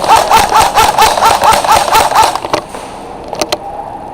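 Airsoft electric gun firing a rapid string of shots, about four a second, each with a short motor whir. It stops about two and a half seconds in, followed by a few single clicks.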